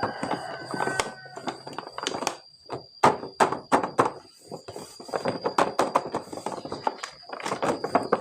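Toy packaging being handled: an irregular run of plastic clicks, taps and knocks, in clusters, over a faint steady high whine.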